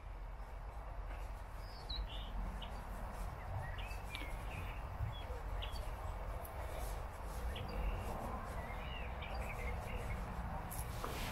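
Wild songbirds chirping and calling in short scattered notes, over a steady low background noise.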